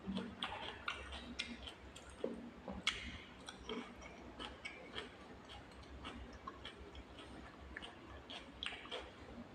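Mouth sounds of someone eating pani puri close to the microphone: irregular wet clicks and smacks of chewing, with one sharper crunch about three seconds in.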